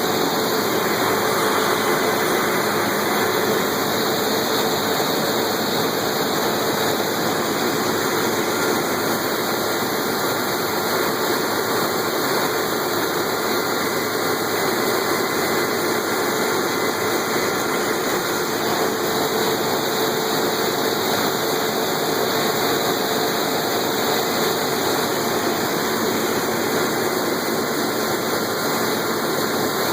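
Farm harvest machinery running steadily: an even engine drone with a constant hum, unchanging throughout.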